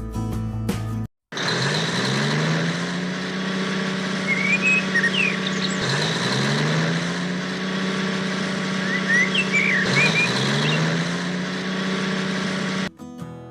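An engine or motor speeding up and then running steadily, three times over, with birds chirping above it.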